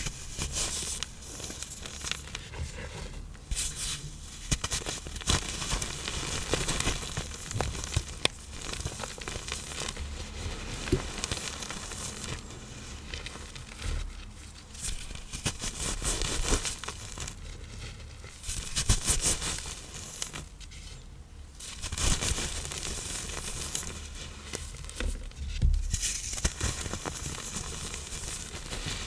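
Reformed blocks of iron oxide powder and cornstarch being crushed and crumbled: a continuous crisp crunching full of small crackles that swells and eases in waves.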